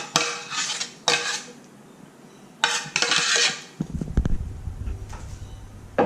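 A metal utensil scraping and clinking against a dish as vegan white sauce is spooned out onto the lasagna: several short scrapes with a faint ring, then duller knocks and handling noise, and a sharp clink at the very end.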